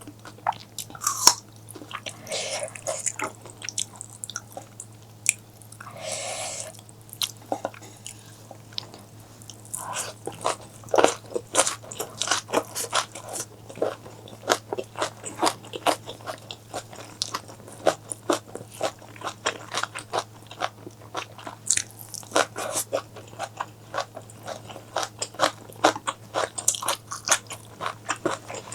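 Close-miked eating: a person biting and chewing crunchy food, with many sharp, irregular crunches and a couple of brief wetter, noisier stretches.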